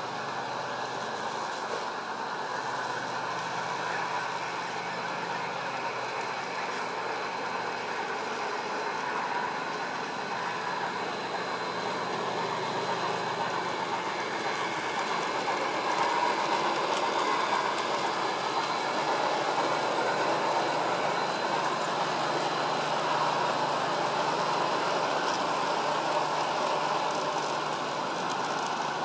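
Garden-scale model trains running on outdoor track: a steady rolling rumble of wheels over rails, a little louder in the second half.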